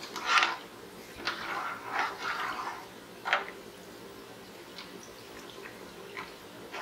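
A ladle stirring rice and water in an aluminium pressure-cooker pot: the liquid sloshes and splashes in several bursts during the first three and a half seconds, then only a few faint small clicks.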